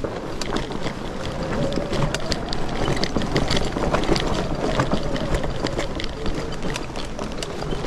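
Fat-tire e-bike with a Bafang BBSHD mid-drive and G62 hub motor ridden over a rough dirt trail: many sharp clicks and rattles as it rolls, with wind rushing on the microphone. A steady electric-motor whine runs from about a second and a half in to about five and a half seconds.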